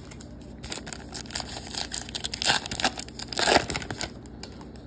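Wrapper of a 2024 Topps Heritage baseball card pack crinkling as it is torn open and the cards pulled out. It is an irregular run of rustles starting about half a second in, loudest twice, around the middle and again about three-quarters through.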